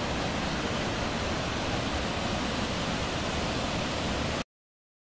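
Dassam Falls' water cascading over rock ledges into its pool, a steady rushing roar that cuts off suddenly near the end.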